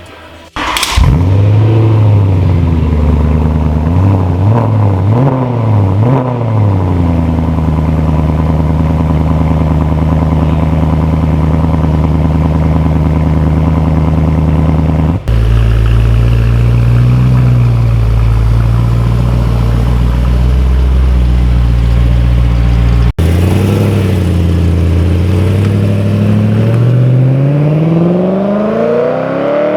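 BMW E93 M3's 4.0-litre V8 breathing through a newly fitted Remus exhaust: it fires up, revs up and down a few times, then settles to a steady idle. Near the end the revs climb slowly and steadily.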